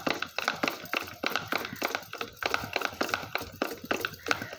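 Two-litre plastic bottle of neem oil, shampoo and water, topped with a pump-sprayer head, shaken hard by hand to mix the oil into the water: a rapid run of knocks and rattles, about five a second.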